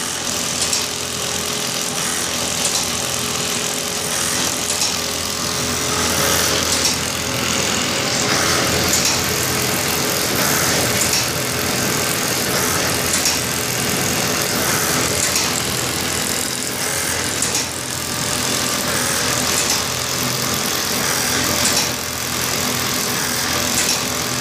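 Automatic bag stitching machine running steadily, with a brief high, sharp sound recurring every couple of seconds.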